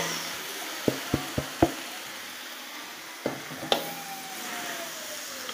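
Genjer stems and flowers sizzling as they are stir-fried in a metal wok with a steel spatula. There are sharp knocks of the spatula against the wok: four in quick succession about a second in, and two more a little after three seconds.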